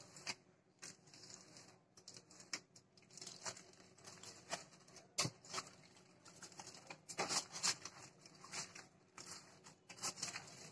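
Aluminium foil crinkling and crackling as a log of soft coconut dough is rolled up tight inside it, in irregular runs of small crackles that are busiest about seven seconds in.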